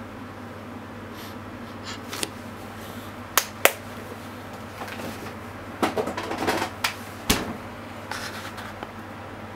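A few sharp clicks and light taps, two close together near the middle and a busier patter of clicks and rustling a little later, over a steady low hum.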